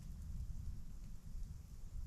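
Blizzard ambience: an uneven, gusting low rumble of wind with a faint high hiss over it.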